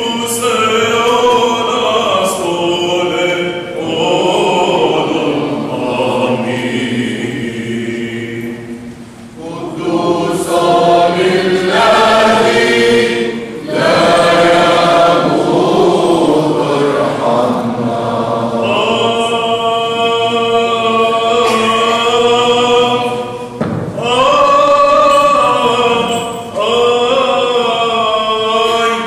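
A group of voices singing Byzantine-rite liturgical chant together, in long held phrases with short pauses between them.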